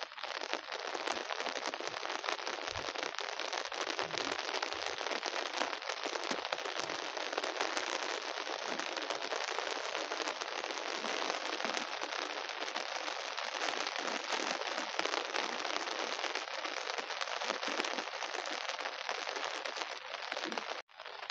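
Heavy monsoon rain falling steadily, a dense even patter of countless drops. It cuts out for a moment near the end.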